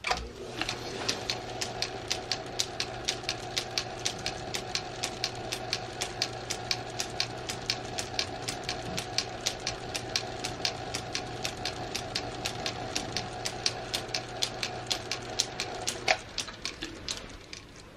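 Small metal lathe running with a steady motor hum and a regular ticking about three or four times a second as it spins a bolt in its four-jaw chuck, with a tailstock drill bit started into the bolt's end. About 16 s in it is switched off with a click, and the ticking slows as the chuck spins down.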